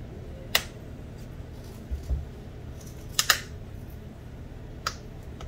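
Sharp plastic clicks as a rugged protective case is pressed and snapped onto the edges of a Samsung Galaxy Tab S7 Plus: one click about half a second in, a quick pair around three seconds, and another near the end, with a duller thump around two seconds, over a steady low hum.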